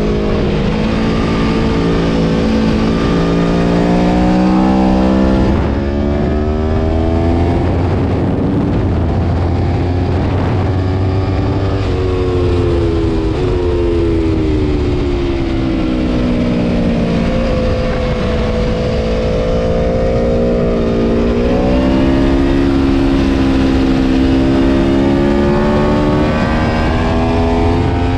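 Aprilia Tuono V4 Factory's V4 engine at race pace, revving hard: its pitch climbs in the first few seconds, falls away steadily through the middle as the bike slows, then climbs again under acceleration.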